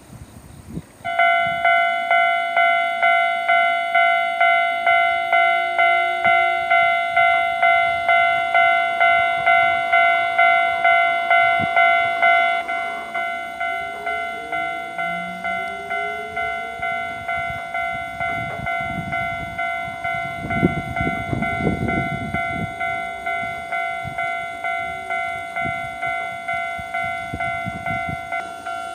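Japanese level-crossing warning bell ringing, starting about a second in, in steady electronic dings about two a second; about halfway through it drops in level. In the second half a Hiroden train runs over the crossing, its rumble and wheel noise rising and then fading under the continuing bell.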